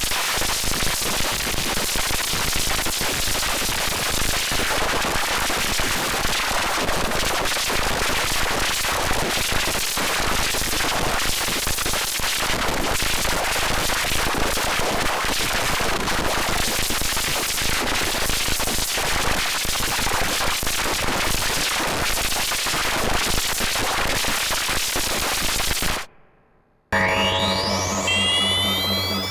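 Analog-synthesizer noise effect for the Wave Motion Gun sound: a dense, crackling hiss at a steady level that cuts off suddenly near the end. After about a second of silence, a new synth sound starts with steady held tones and rising sweeps.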